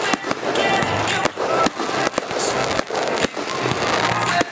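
Fireworks display: a quick string of sharp bangs from bursting aerial shells, several a second, over a continuous crackle and hiss.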